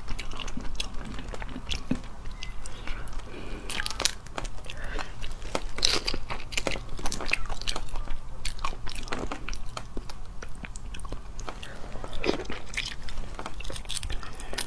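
Cooked prawn shells being cracked and peeled apart by hand: irregular crisp cracks and crackles.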